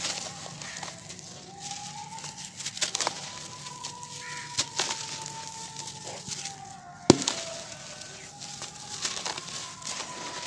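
Hands crushing and crumbling dry sand-cement cones into powder and small lumps: gritty crunching and crackling, with one sharp crack about seven seconds in. A faint wavering whine runs underneath.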